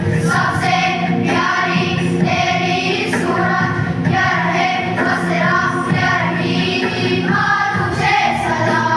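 A choir singing a song in unison over steady low backing notes.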